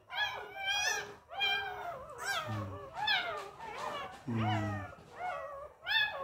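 A puppy about two weeks old crying in short, high, rising-and-falling squeals, about two a second.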